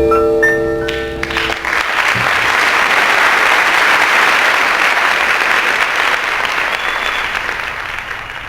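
A jazz quartet's closing chord rings out and stops about a second and a half in. An audience then applauds, fading out near the end.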